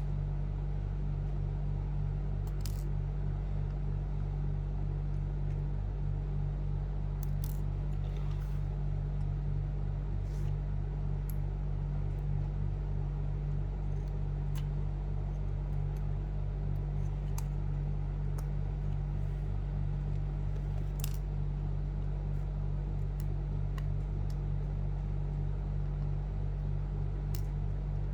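A steady low hum, with a dozen or so faint, sharp clicks scattered through it as small parts and tools are handled while fitting a connector inside a laptop.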